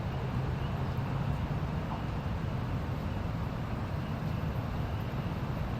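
A steady low hum and rumble under an even hiss, unchanging throughout.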